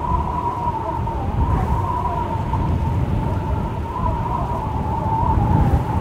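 Strong wind howling: a deep, continuous rumble with a high, wavering whistle over it that rises and falls slightly.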